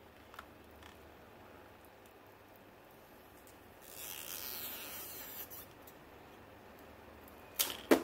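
Thin plastic pry card scraping and tearing through the adhesive under an iPhone 6 battery for about two seconds. Near the end come two sharp clacks as the battery pops free.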